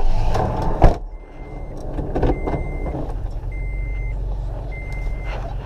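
A vehicle's engine idling with a steady low rumble, while a single high-pitched warning beep repeats about once a second. Just before the beeping starts, about a second in, there is a loud thump.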